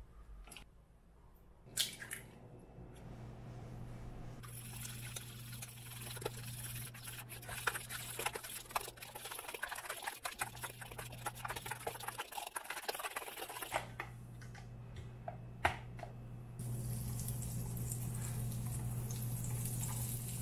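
Waffle batter being mixed in a bowl: a busy run of wet, squishing stirring strokes with small clicks, over a steady low hum.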